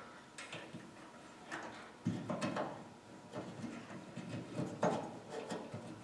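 Hands working wiring behind a Jeep's dashboard: irregular small clicks, knocks and rustling as wires and connectors are handled. It grows louder about two seconds in.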